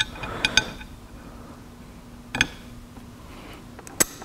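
Small metal bolts and washers clinking as they are handled and set on a steel roof bracket, a few separate light clicks. Near the end a ratchet wrench starts clicking as a bracket bolt is tightened.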